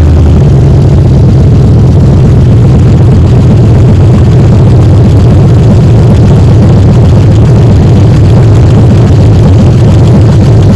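LS-swapped V8 in a Cutlass Supreme, running on its first start-up with a newly installed wiring harness. Engine speed steps up slightly about half a second in, then the engine holds a steady, loud idle.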